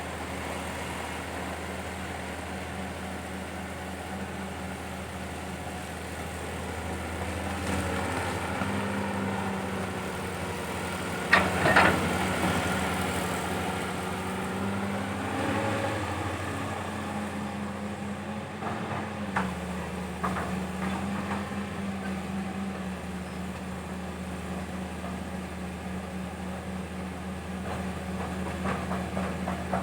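CAT 320 hydraulic excavator's diesel engine running steadily while digging, its note shifting slightly about two-thirds of the way through. Around the middle there is a brief loud metallic clatter, and lighter knocks come near the end.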